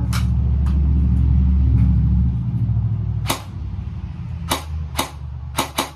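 Airsoft rifle firing single sharp shots at uneven intervals, one at the start and about six more in the last three seconds, some close together. It is failing to cycle properly after a jam. Under the first half runs a low, steady rumble that fades out about three seconds in.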